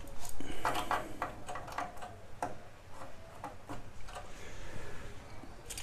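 Small plastic clicks and scrapes of IC chips being pulled and pressed back into their sockets on a Commodore PET 2001 mainboard while re-seating them: a quick run of clicks in the first two and a half seconds, then a few scattered ones.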